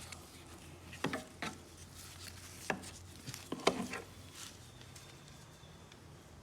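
Several light knocks and clicks as a lawn mower's air filter assembly is handled and fitted into place.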